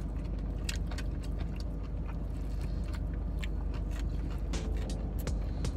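Crispy fried chicken being bitten and chewed close to the microphone, a run of short crunches over the low, steady hum of a car.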